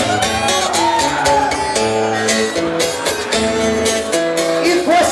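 Live band music: a voice singing held notes over a steady drumbeat.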